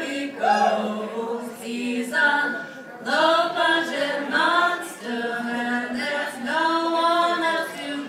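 Women singing together in harmony, unaccompanied, in phrases of held notes about a second long with short breaks between.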